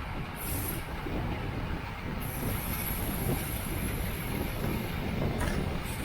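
Wind rushing over the microphone of a bicycle racer's camera at speed, with a thin high whine coming in about two seconds in and holding.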